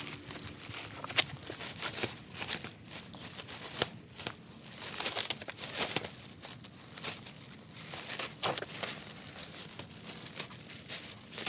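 Irregular rustling and crinkling, with scattered sharp clicks and crackles.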